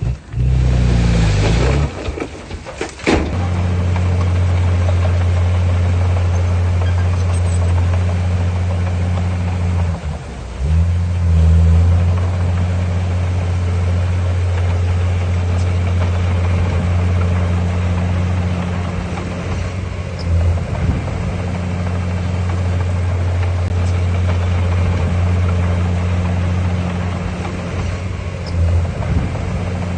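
Heavy diesel engine of earthmoving equipment running with a deep steady drone. It revs up over the first two seconds, there is a sharp knock about three seconds in, and it dips and surges briefly around the ten-second mark.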